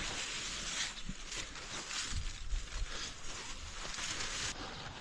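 Leaves and vines of garden cucumber plants rustling as they are pushed aside while someone searches for cucumbers, with a few dull knocks about two seconds in.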